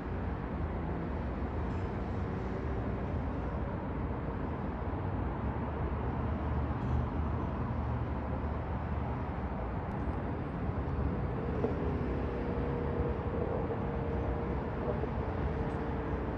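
Steady distant road-traffic noise, a low hum of passing cars, with a faint steady tone coming in about eleven seconds in.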